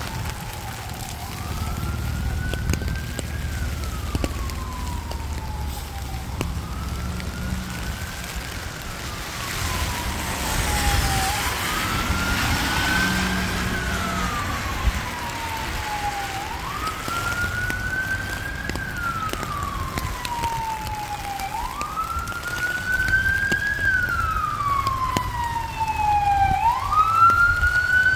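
An emergency vehicle's siren wailing in slow cycles, each rising quickly and falling slowly, about every five seconds, growing louder near the end as it approaches. Rain and wet-street traffic noise run underneath.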